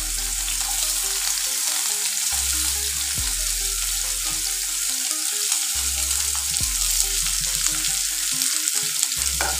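Chopped onion, ginger-garlic paste and green chillies sizzling in hot oil in a pan: a steady frying hiss.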